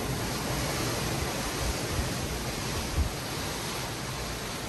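Hurricane wind and rain rushing steadily, with gusts buffeting the microphone in low thumps, the strongest about three seconds in.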